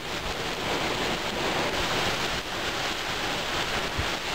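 Torrential rain pouring down onto flooded pavement, a steady dense hiss, with gusting wind rumbling on the microphone.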